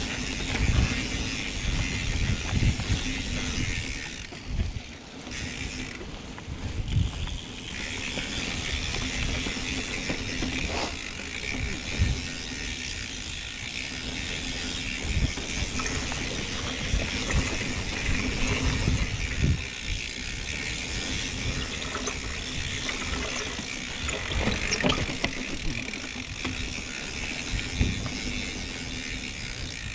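Mountain bike being ridden along a dirt trail: tyres rolling over dirt, the chain and drivetrain rattling, with scattered clicks and low thuds from bumps in the trail.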